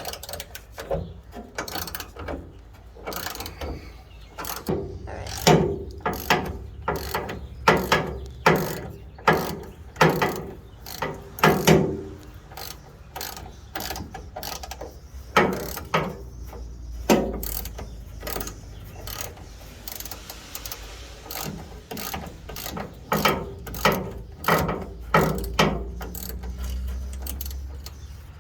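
Hand ratchet clicking in repeated back-and-forth strokes as a long rear bumper bolt is backed out.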